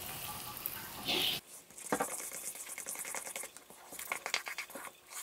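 Water pouring from a plastic bottle onto rice flour in a cooker pot for about the first second and a half, then a wooden spoon stirring and scraping the wet glutinous rice flour and malt mixture, a run of small irregular scratches and clicks.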